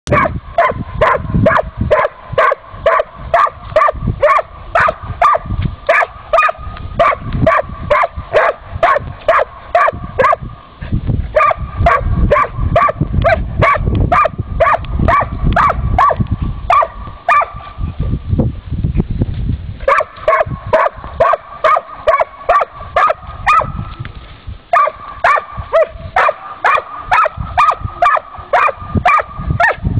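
A dog barking over and over, about two barks a second, with a few short pauses.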